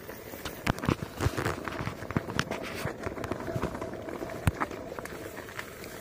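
Onewheel self-balancing electric board ridden over a rough dirt path: irregular knocks and clicks from bumps and stones, with plants brushing past, over a faint steady hum.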